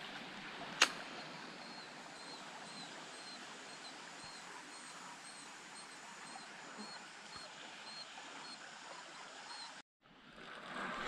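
Steady rush of flowing river water, with a repeated high chirping call about twice a second over it and a single sharp click about a second in. The sound cuts off suddenly near the end.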